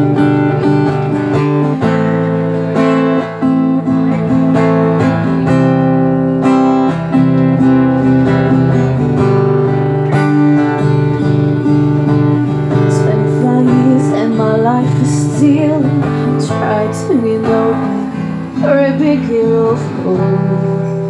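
Acoustic guitar strummed steadily in a live song, with a woman singing over it through the later part.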